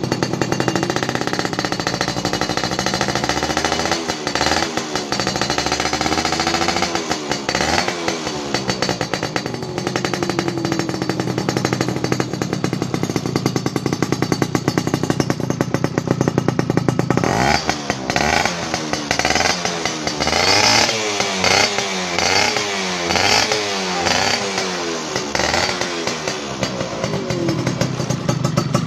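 Yamaha F1ZR's single-cylinder two-stroke engine running through a CRN racing expansion-chamber exhaust. It idles and is revved in short throttle blips, a few early on and then over and over in the second half.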